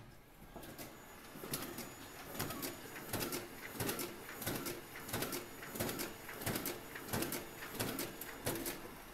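Gestetner Copyprinter 5450 digital duplicator running a print job: its drum and paper feed build up over the first second or so, then settle into a steady rhythmic cycle of paired clicks about every two-thirds of a second as each printed sheet is fed and ejected into the output tray.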